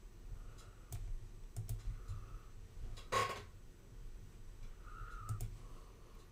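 Scattered light clicks of a computer mouse and keyboard, with a brief louder noise about three seconds in.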